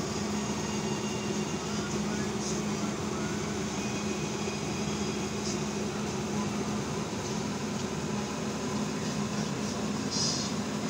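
Steady machinery drone with a constant low hum, broken by a few brief high hisses.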